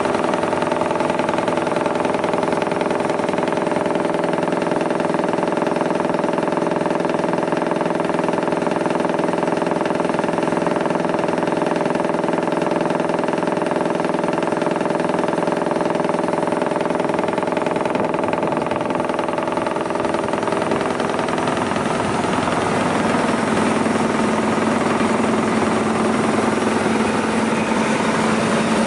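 Żefam electric wood chipper running empty, a steady machine hum with several held tones from its electric motors and drive. About two-thirds of the way in, the sound shifts and a lower hum comes forward.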